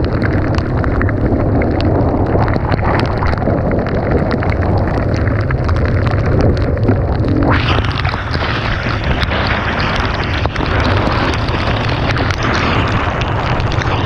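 Dirt bike riding: the engine runs under heavy wind buffeting on the microphone, with a hissing rush joining about halfway through.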